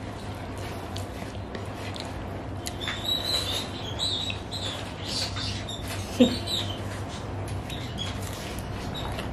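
Fingers mixing rice and mashed potato on a plate: soft wet squishing and many small clicks, then mouth sounds as a mouthful is taken near the end. One short, loud sound about six seconds in.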